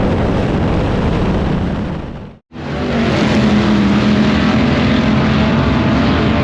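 Late model race car engines running hard on track, a loud, steady drone. About two and a half seconds in, the sound fades to nothing and then comes straight back up.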